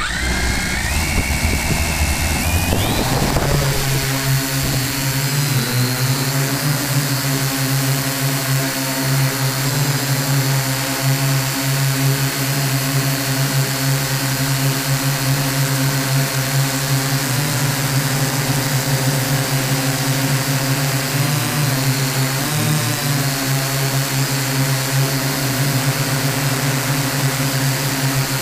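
Electric motors and propellers of a small radio-controlled aircraft, heard close up through its onboard camera. Their pitch steps upward over the first three seconds as they spin up, then they hum steadily, with a brief wobble in pitch about 22 seconds in.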